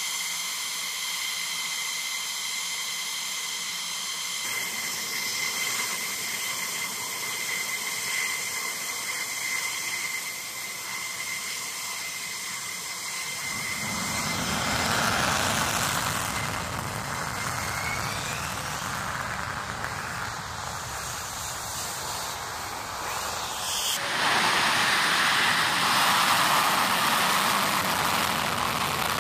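F-15E Strike Eagle twin turbofan jet engines running on the ground. At first there is a steady high whine with hiss. About 14 seconds in it changes to a louder, fuller rushing jet noise as a jet taxis. About 24 seconds in it becomes louder still as a jet begins its takeoff roll.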